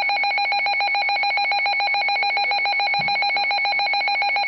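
Weather radio receiver's alert alarm sounding for an incoming tornado warning: a rapidly pulsing, trilling electronic beep, held steady.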